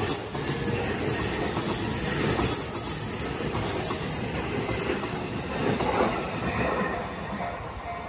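E233 series 6000 electric train running past over the rails: steady wheel-on-rail noise that fades over the last couple of seconds.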